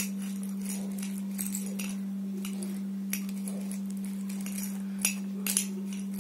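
Metal spoon clinking and scraping against a glass jar as it digs through dried kidney beans, in irregular small clicks, with a couple of louder clinks about five seconds in. A steady low hum runs underneath.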